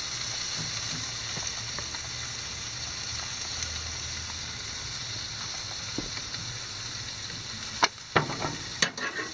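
Chicken pieces sizzling steadily on a hot charcoal grill as barbecue sauce is spooned onto them. A few sharp clicks come near the end.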